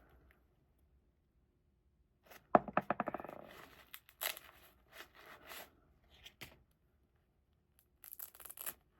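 Hands handling a plastic fashion doll and its small accessories: a quick run of rattling clicks, then scattered clicks and rustles, and a short crinkle near the end.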